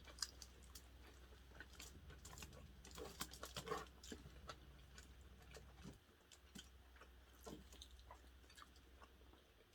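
Faint chewing and eating sounds with scattered soft clicks, a little louder about three to four seconds in, over a low hum that stops about six seconds in.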